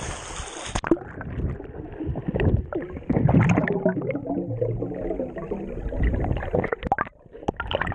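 Water sloshing at the surface, then a sudden muffling about a second in as the camera goes under. After that, muffled underwater sound of swimmers diving: gurgling and bubbling with scattered knocks and clicks.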